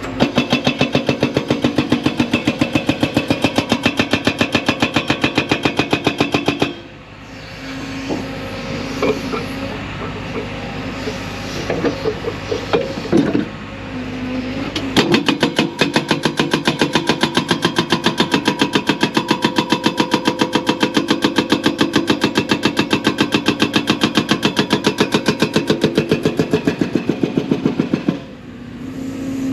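A 4,000 lb hydraulic breaker on a 55,000 lb excavator hammering rock in a rapid, steady train of blows. It stops for about eight seconds in the middle, leaving the excavator's diesel engine running with a few scattered clanks, then hammers again until shortly before the end.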